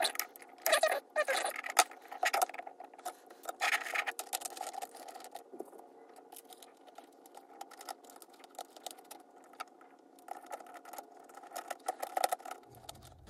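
Small electric motor of an HO scale model steam locomotive running on test power: a steady whine with irregular clicking and rattling, the clicks heaviest in the first few seconds. Its commutator is badly gunked up.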